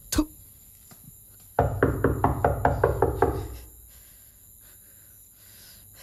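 Rapid knocking, about ten strikes at roughly five a second, lasting about two seconds and starting about a second and a half in, after a single sharp click at the very start.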